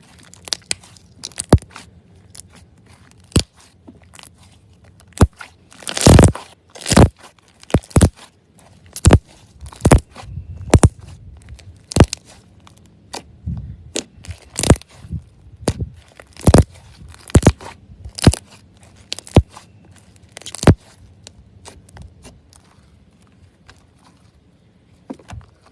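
Slime being pressed and squeezed by hand, giving irregular sharp pops and crackles. They come thickest and loudest in the first half, then thin out.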